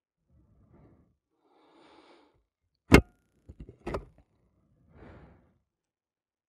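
Soft swishes, then a sharp knock about three seconds in, followed by a few smaller knocks and a second hit just under a second later, then another faint swish.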